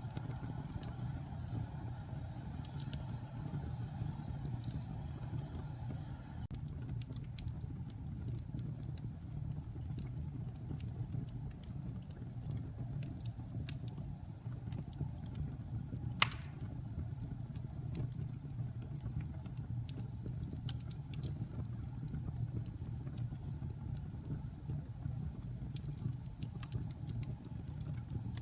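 Wood fire burning in a fireplace: a steady low rumble with scattered crackles, and one loud pop about 16 seconds in.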